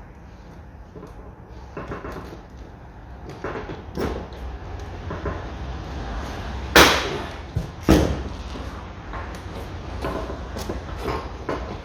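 Hand rivet gun being worked to set a pop rivet holding a car window regulator in the door: repeated clicks and knocks, with two loud sharp snaps about a second apart just past the middle.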